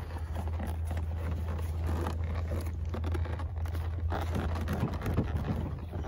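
Scraping and rustling of a leather stirrup leather being pushed and worked through a saddle's fleece-lined skirts, with scattered small knocks, over a steady low hum.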